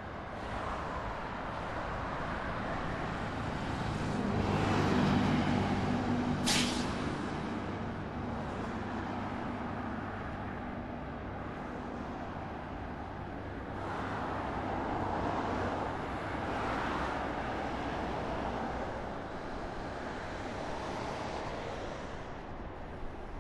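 Steady road traffic with vehicles passing one after another. A heavy vehicle's engine hums close by, and its air brakes give one short, sharp hiss about six and a half seconds in.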